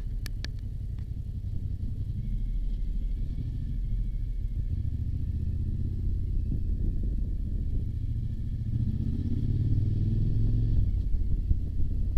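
Motorcycle engine running while riding, with a steady low rumble; the engine pitch rises about two-thirds of the way in as it speeds up.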